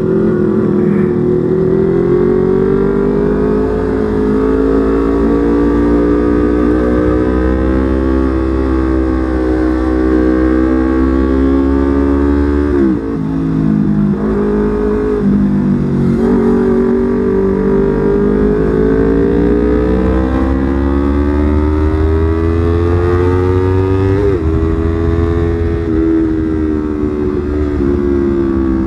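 Yamaha R25's 250 cc parallel-twin engine running under way, its note rising and falling slowly with the throttle. About 13 seconds in the pitch drops sharply and then moves in a few quick steps before climbing again, with another brief dip near the end.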